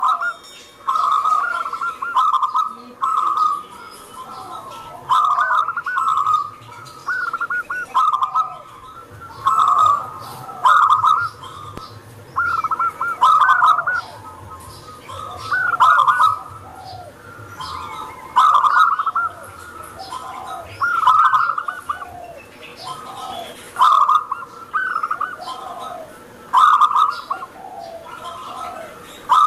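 Zebra dove (perkutut) singing: loud cooing phrases repeated every two to three seconds, with softer notes and faint higher chirping between them.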